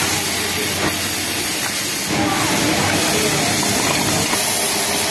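Pegasus industrial flatlock sewing machine running steadily at speed, stitching a seam, a continuous loud whir.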